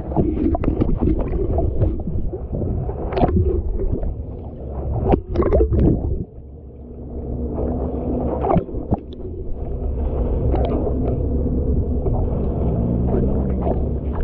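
Water sloshing and gurgling around a camera held half-submerged at the surface, muffled and low, with scattered knocks. It drops quieter about six seconds in.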